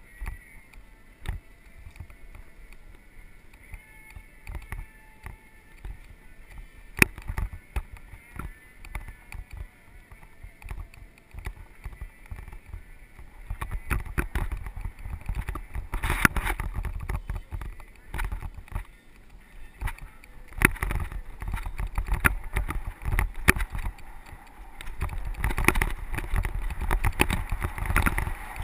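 Mountain bike riding over a dry, rough dirt trail: tyres crunching on dirt and gravel, with frequent clicks, knocks and rattles from the bike over bumps and a low wind rumble on the microphone. It grows louder about halfway through, and again near the end, as the ride speeds up.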